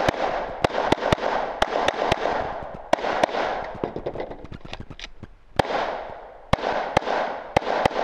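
Semi-automatic pistol firing a string of shots at roughly two a second, a pause of about two and a half seconds in the middle, then more shots; each shot trails off in an echo.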